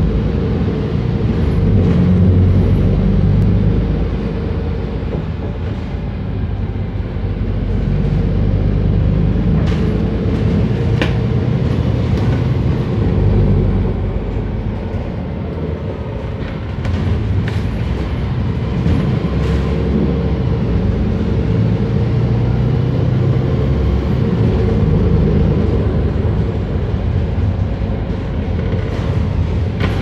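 Engine and road rumble heard from inside a moving bus's cabin, swelling and easing as it drives, with a steady hum and a few light rattles and clicks.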